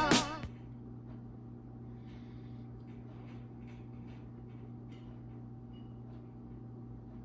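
Music dies away in the first half second, then quiet room tone: a steady low hum with a few faint clicks and rustles.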